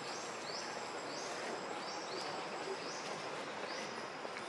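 Forest ambience: a steady insect hiss with a faint high tone, and a high call repeating about once a second, each a quick rise into a short held note.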